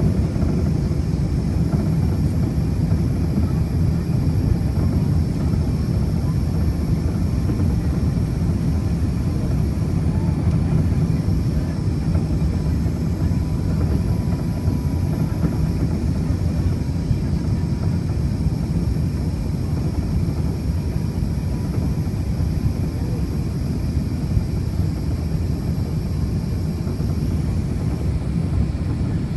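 Steady cabin noise of an Airbus A380 in flight: a constant low rumble of engine and airflow heard from a window seat inside the cabin.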